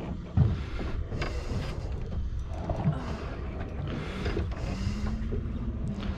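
Steady low rumble of wind and water around a small fishing boat at sea, with a sharp knock about half a second in and a short steady hum near the end.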